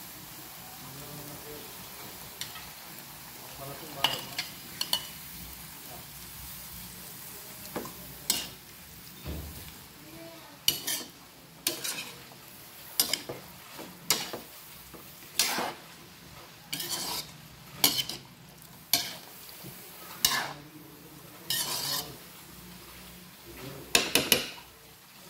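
Sliced breadfruit and green beans sizzling in a metal wok while a utensil stirs and scrapes them. There are a few light clicks early, then a scraping stroke about once a second through the second half, the loudest near the end.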